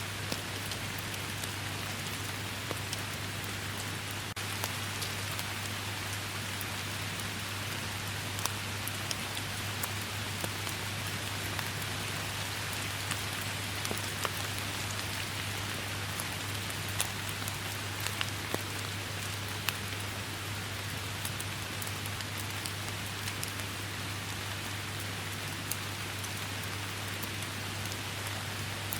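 Steady rain falling, a constant hiss with many scattered individual drop hits and a steady low hum underneath.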